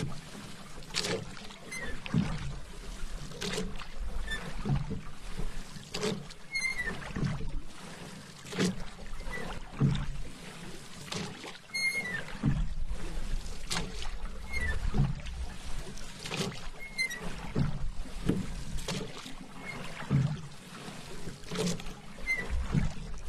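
Paddle strokes in calm water, a splash and swirl about every second and a quarter in a steady rhythm, with small drips between strokes.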